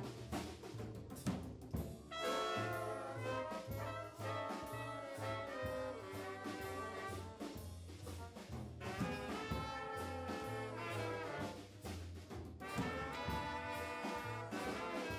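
Big band with a horn section of trumpets, trombones and saxophones playing a jazz tune over a bass line and drums.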